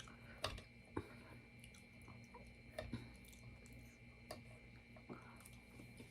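Close-up chewing of food, quiet overall, with a handful of sharp wet mouth clicks and smacks spaced about a second apart.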